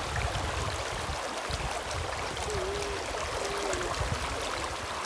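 Shallow, clear river water running steadily over a gravel bed, with the rush of the current around a wading child's legs.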